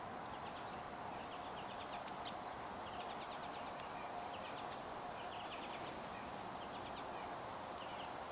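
Small songbirds twittering at a seed feeder: short rapid trills of ticking notes, repeated about once a second, over a faint steady hum.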